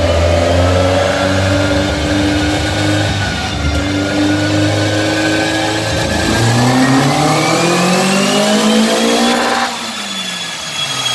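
Westfield sports car's engine running on a rolling-road dyno, holding fairly steady revs for about six seconds, then rising steadily in pitch as it revs up. Near the end the throttle is lifted: the sound drops suddenly and the revs fall away.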